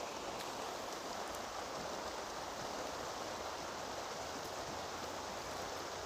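Steady, even rushing noise of flowing water.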